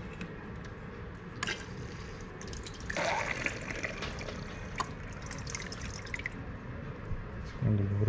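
Water sloshing and dripping as a stainless steel bowl scoops water out of a plastic bucket reservoir, with a short splash about three seconds in and a few light knocks.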